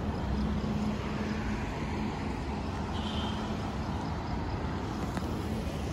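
Light road traffic on the street below: a steady hum of passing vehicles' engines and tyres.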